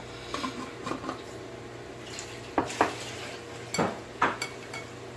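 Small metal whisk stirring yogurt with onion, tomato and cumin on a ceramic plate: irregular clinks and scrapes against the plate, louder in the second half.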